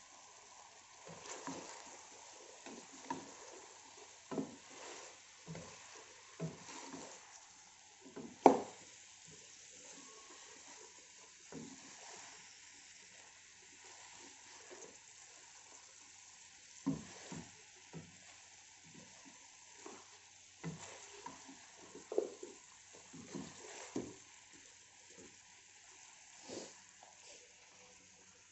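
Wooden spoon stirring chunks of eggplant and potato in a stainless steel pot, with irregular scrapes and knocks against the pot over a faint steady hiss. The sharpest knock comes about eight seconds in.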